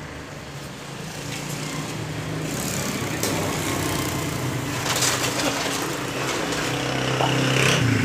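A small motorcycle engine running, its pitch wavering and the sound growing steadily louder as it approaches.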